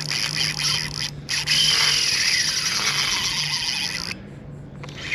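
Spinning reel's drag ratcheting out in a fast continuous buzz as a big hooked fish pulls line off, with a short break a little after one second, stopping about four seconds in.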